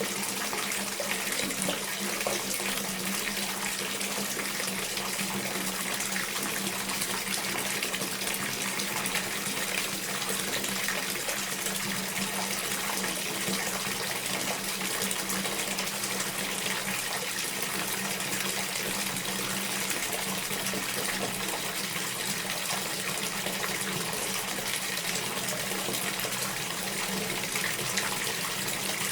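Tap water pouring steadily into a filling household bathtub: an even, unbroken rush of water.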